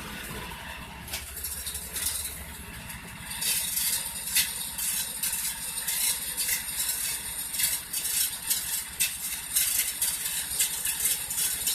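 Well-drilling work: a small engine running low at first, fading out about two and a half seconds in. From about three and a half seconds, a steady hiss takes over, with irregular metal clinks and scrapes.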